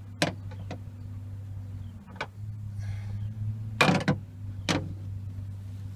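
A hand tool being fitted to the oil drain plug of a generator: a handful of separate sharp clicks and knocks, the loudest pair about four seconds in, with a short scraping sound just before them. A steady low hum runs underneath.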